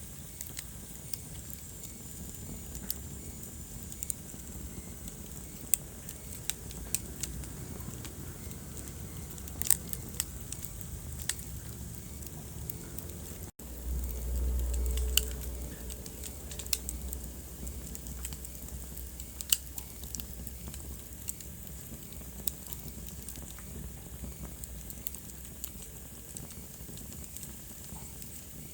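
Wood fire in a fireplace crackling, with frequent sharp pops over a steady low rumble of the flames. About halfway through the sound cuts out for an instant, then the low rumble swells for a couple of seconds.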